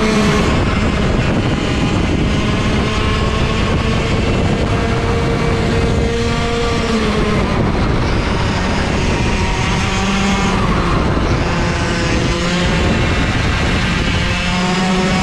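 Racing kart engines running hard on track, their high buzzing note held for several seconds, then dropping and climbing again as the karts slow for corners and accelerate out, with wind rushing over an onboard microphone.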